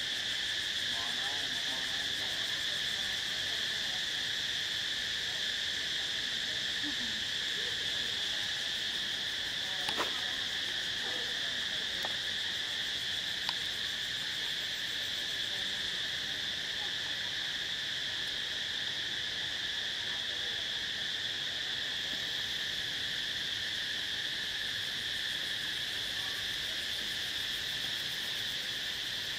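A steady, high-pitched chorus of insects droning without a break, with a few faint clicks near the middle.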